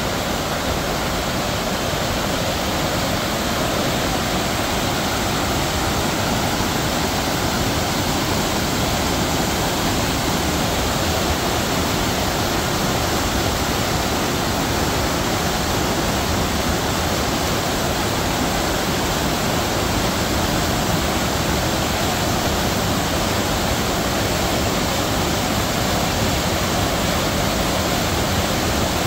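Steady, even rush of fast-flowing mountain water, a waterfall or torrent, with no breaks or changes.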